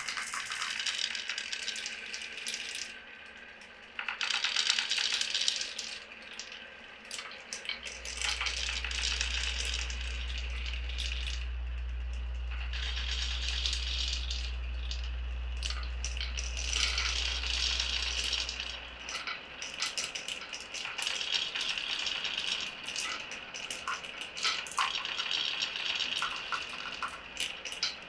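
Glass marbles rolling and clattering down a wooden marble run, a dense stream of clicks and rattles. A small motor hums low and steady for about eleven seconds in the middle.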